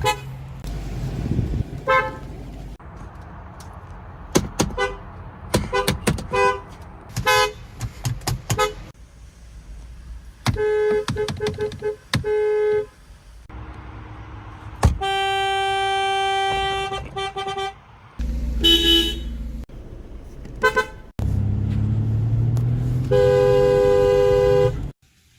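Horns of German cars sounding in a run of separate clips: quick rapid toots through the first half, then longer held honks, some with two notes sounding together, each clip cutting off abruptly. Engine and traffic rumble lies underneath.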